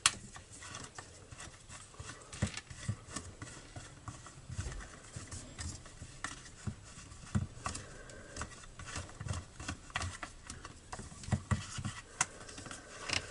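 Irregular small clicks and taps of a 4 mm hex key turning out the bolts of a chainsaw's plastic top cover, with light handling knocks against the plastic housing.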